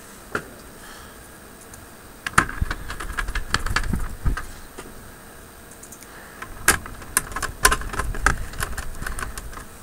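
Hand screwdriver working small screws on a monitor's circuit board and sheet-metal chassis: quick clusters of metallic clicks and rattling in two spells of about two seconds each, the first starting about two seconds in.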